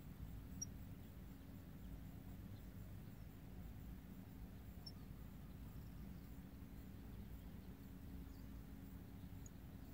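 Near silence: a faint low hum and rumble, with three tiny high chirps from a small bird, one about a second in, one about five seconds in and one near the end.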